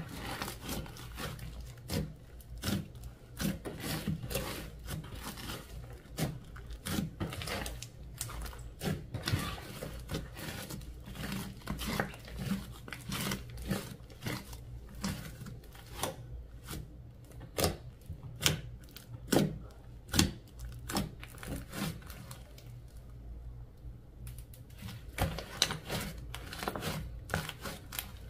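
Slime being squeezed and stretched by hand, with a quick irregular run of sticky pops and crackles as air pockets in it burst; a few pops are much louder than the rest.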